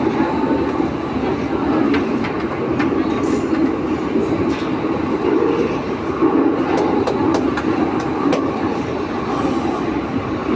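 Santiago Metro AS-02 train running between stations, heard from inside the car: a steady rumble of wheels on rail with scattered sharp clicks, most of them about seven to eight seconds in.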